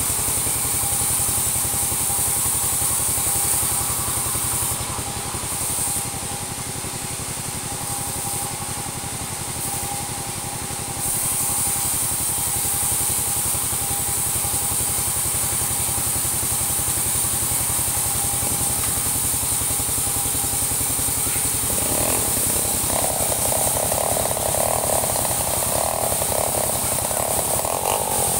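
Two-stroke chainsaw idling steadily, then revved up about 22 seconds in and cutting into gedawung timber near the end.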